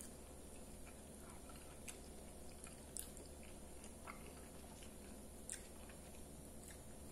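Faint close-mouthed chewing of a mouthful of soft rice and beans, with a few sharp mouth clicks spread over the seconds, over a steady low hum.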